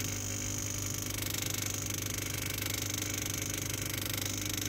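Water pump of a Laurastar 535 steam-generator iron running with a very loud, steady buzz and not cutting out. The repairer takes the pump's nonstop running for a fault, possibly inside the pump section.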